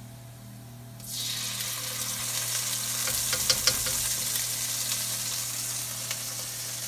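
Red sauce hitting hot oil and garlic in a wok, starting to sizzle suddenly about a second in and sizzling steadily after, with a few sharp clicks of the spoon against the metal cup and pan near the middle.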